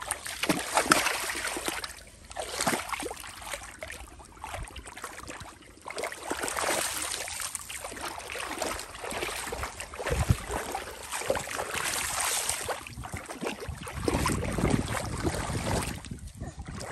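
Shallow muddy water splashing and sloshing in irregular bursts as a child wades and grabs in it with his hands.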